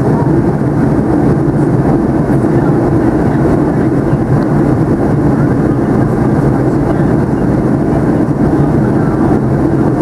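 Steady cabin noise inside a Boeing 757-200 in flight, heard from a window seat beside the wing: a constant, loud engine drone with airflow rush and a steady low hum.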